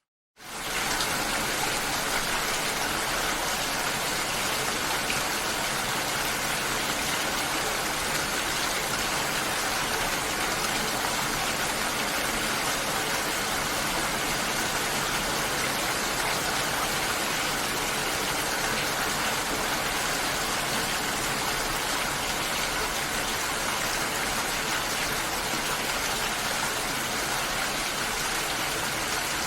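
Steady rain falling, an even hiss that comes in abruptly about half a second in, after a moment of silence.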